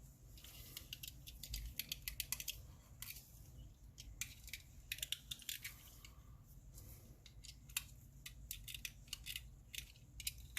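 Faint, irregular clicks and light scraping from a small diecast toy car as its drilled-out body and base are worked apart by hand.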